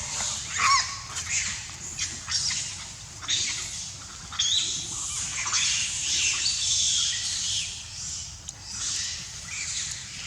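Many high-pitched animal calls, squeals and chirps, overlapping, some rising and falling in pitch.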